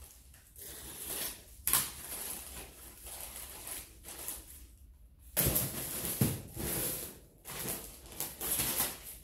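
Plastic courier satchel crinkling and rustling as it is torn open and handled, with a sharp crackle about a second and a half in and the loudest rustling from about five to seven seconds in.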